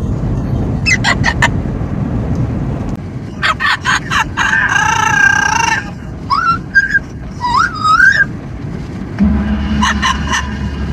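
Amazon parrot calling in a moving car: a few short chirps, a long squawk about four seconds in, then two rising whistles and more calls near the end, over steady car road and wind noise. A low steady hum joins near the end.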